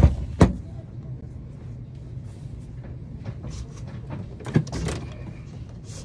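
Handling noise of a phone being set down on a perforated metal store shelf: two loud knocks right at the start, then a steady low hum with scattered small clicks and rustles, and a few sharper clicks about four and a half seconds in.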